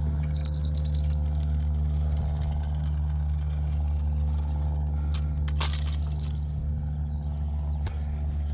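A steady low droning hum, with light metallic clinks near the start and around five to six seconds in and a sharp click about five and a half seconds in, as a wooden ice-fishing tip-up is handled and its line worked by hand.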